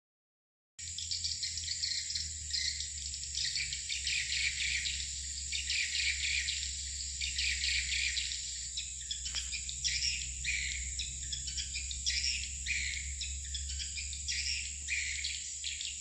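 A dense, continuous chorus of swiftlet chirps and twitters, with a steady high whine and a low rumble beneath, starting abruptly about a second in.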